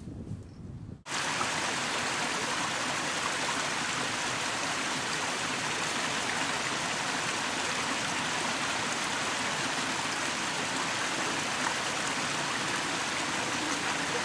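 Steady rush of flowing water from a creek, cutting in abruptly about a second in.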